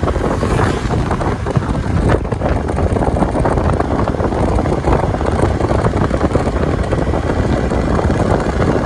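Wind rushing and buffeting over the microphone on a moving Bajaj motorcycle, with the bike's engine and road noise steady underneath.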